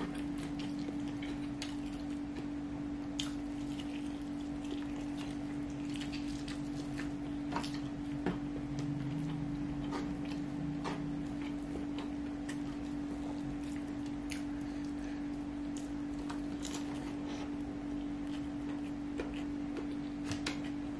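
Close-miked eating by hand: scattered small wet clicks and smacks of chewing and of fingers mixing fried rice on the tray, over a steady low hum.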